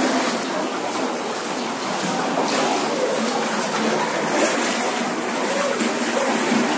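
Water splashing and rushing as people wade through the ancient rock-cut water tunnel, heard as a steady, even wash of sound.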